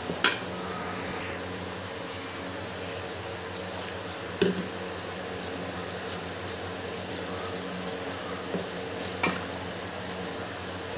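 A spoon stirring thick flour-and-yogurt jalebi batter in a stainless steel bowl, with a few sharp clinks of the spoon against the bowl, over a steady low hum.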